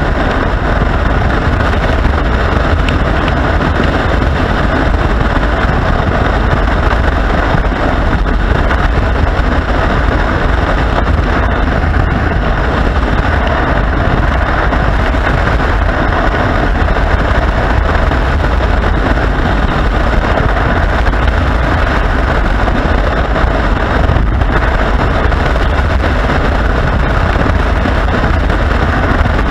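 Motorcycle riding at steady speed: a loud, unbroken rush of wind on the microphone mixed with engine and road noise, heavy in the low end, with no change in speed.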